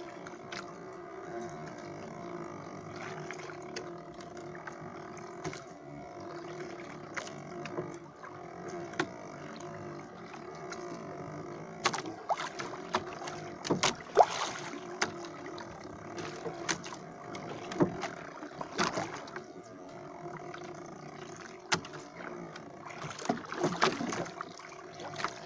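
A steady machine hum of several low tones runs throughout, with scattered sharp knocks and clicks on a small wooden boat as a fishing handline is hauled in hand over hand.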